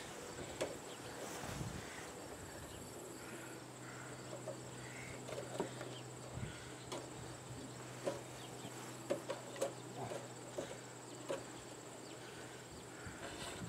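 Scattered light clicks and knocks of hands working a leather drive belt through the underside of a treadle sewing machine, over a steady high-pitched insect trill.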